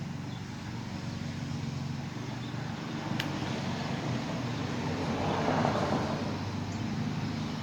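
A car passing by outside, swelling to its loudest about five and a half seconds in and then fading, over a steady low hum. There is a single sharp click about three seconds in.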